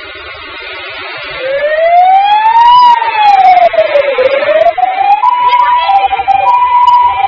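MAN heavy fire tender's siren switched on as the truck drives out. It gives one slow wail that rises, falls and rises again, then changes to a two-tone pattern switching between a high and a low note, loud over the running of the truck's engine.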